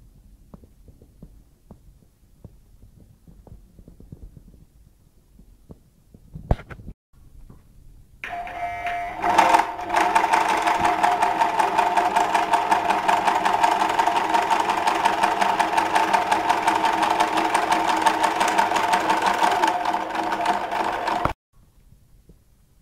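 Home sewing machine sewing a chain stitch: it starts about eight seconds in, picks up speed over a second or two, runs steadily at speed, then stops abruptly near the end. A single click comes shortly before it starts.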